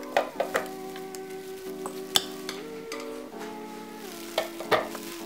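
Metal spoon and fork clinking against a glass bowl and the plastic jar of a mini chopper as soft cooked squash and carrots are scooped across: a few sharp clinks near the start, one about two seconds in, and two near the end. Background music of held notes plays underneath.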